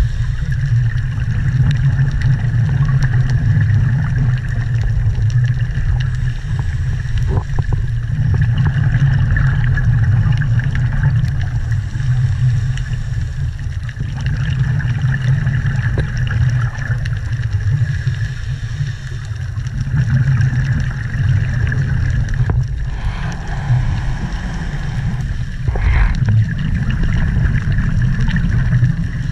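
Underwater ambient noise heard through a camera housing: a steady low rumble of moving water with a faint, even drone above it.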